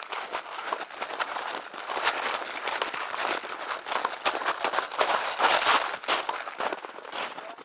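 Dense crunching and rustling of dry leaves and undergrowth under quick footsteps, the player moving through the woods, with brush scraping close to the microphone.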